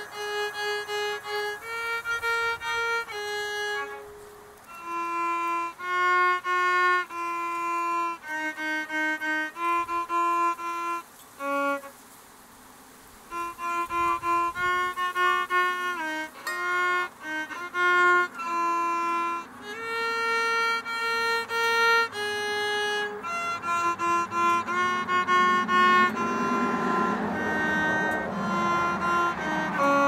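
A violin playing a melody, one note at a time, with a short break about twelve seconds in.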